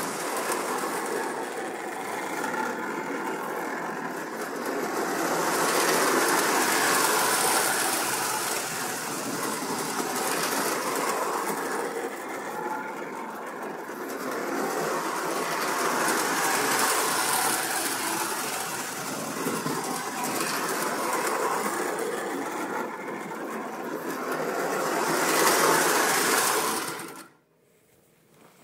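Postwar Lionel O27 toy train running around a loop of tinplate track: the locomotive's motor hum and the wheels clattering on the rails swell and fade with each lap, about every nine or ten seconds. The sound cuts off abruptly near the end as the train stops.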